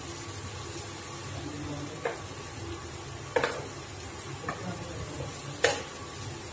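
A spatula stirs a paneer bharta mixture frying in oil in a nonstick pan, over a steady low sizzle. The spatula knocks against the pan four times, loudest about halfway through and near the end.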